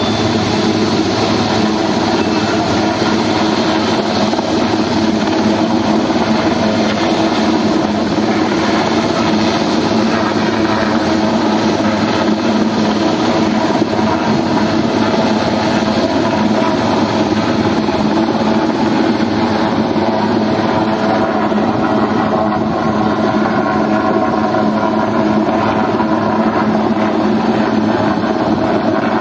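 Sea King helicopter hovering: steady rotor and turbine noise, with wind buffeting the microphone.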